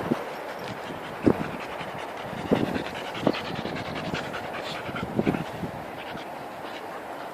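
Dog panting hard and steadily, with a few short, sharp sounds breaking in, the loudest about a second in.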